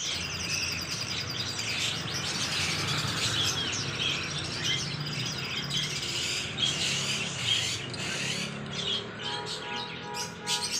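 Many birds chirping and calling at once in dense, overlapping chatter over a low steady hum.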